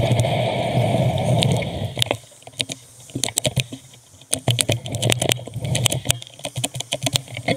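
A motor vehicle passing close, its noise falling away about two seconds in, followed by a run of irregular sharp clicks and rattles.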